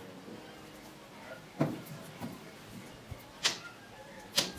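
An iPad Air cardboard box being handled on a wooden table: three short knocks as it is turned over and set down, with a few fainter taps between.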